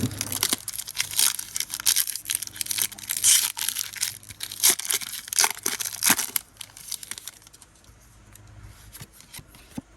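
Foil wrapper of a Pokémon card booster pack being torn open and crinkled, with a run of sharp crackles that dies away about six seconds in.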